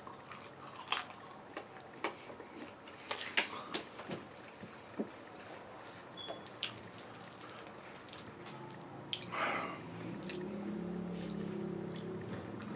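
A person chewing and biting into pizza, with scattered wet mouth clicks and smacks. A low steady hum comes in about ten seconds in.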